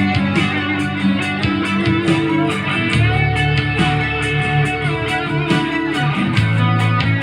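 Instrumental interlude of a pop ballad with no singing: guitar playing the melody over bass and drums.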